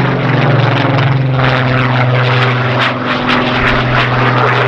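Supermarine Spitfire's V12 piston engine running in a display flypast, a loud, steady propeller drone.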